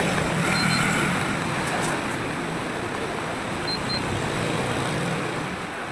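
Steady road-traffic noise with a low rumble. Two pairs of short, high-pitched electronic beeps, one under a second in and another about four seconds in.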